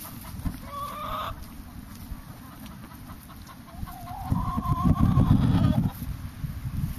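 Chickens in a laying-hen pen calling: a short call about a second in, then a longer, wavering call from about four seconds in, over a low rumble that is loudest during the long call.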